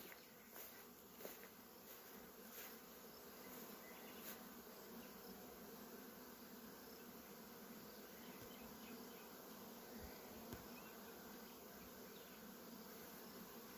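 Faint, steady hum of many honeybees flying around the hive entrances of a truck-mounted apiary. The bees are foraging strongly during the black locust flow.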